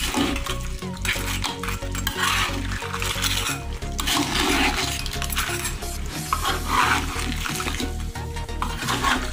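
A spatula stirring and scraping through crab and sauce in a cooking pan, in repeated strokes every second or so, with background music underneath.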